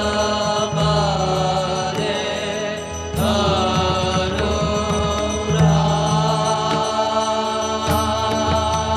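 Devotional arati hymn being chanted in song, with a steady low drone underneath and sharp percussion strokes every few seconds.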